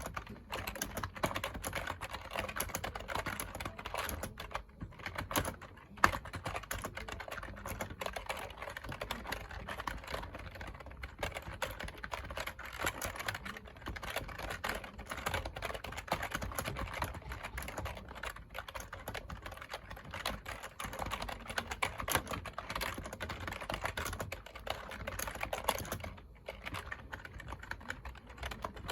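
Continuous fast typing on a computer keyboard: a dense stream of clicking keystrokes, with a couple of brief pauses and one sharper, louder key strike about six seconds in.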